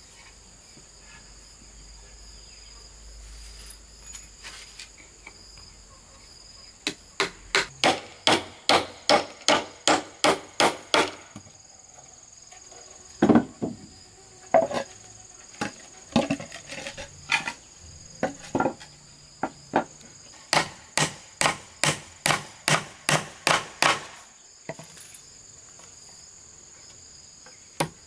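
Hammer striking wood in quick runs of about three blows a second, with pauses between the runs, over a steady high insect buzz.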